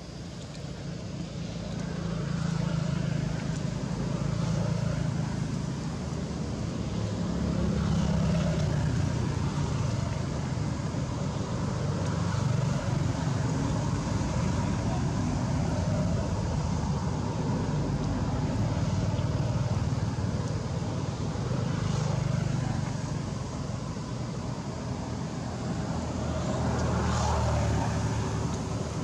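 Low motor-vehicle rumble that swells and fades several times as vehicles pass, with a few faint clicks.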